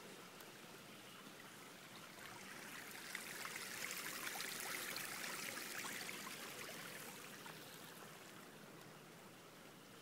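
Running water trickling and splashing. It grows louder over the first few seconds, is loudest around the middle, then fades again.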